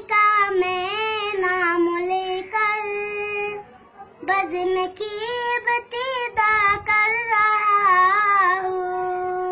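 A young boy singing an Urdu hamd (devotional song praising God) solo, with no instruments: two long, ornamented phrases with wavering held notes and a brief breath about four seconds in, the second phrase ending on a long held note.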